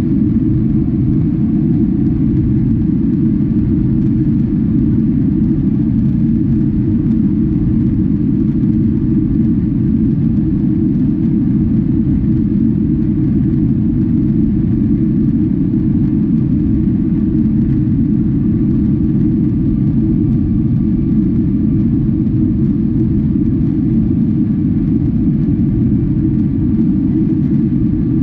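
Steady low roar of engine and airflow noise inside the cabin of a Boeing 777-300 airliner in its climb after take-off, with no change in level.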